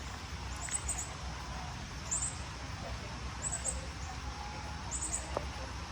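Outdoor ambience with a steady low rumble and a short high chirp of three or four quick notes, repeating about every second and a half.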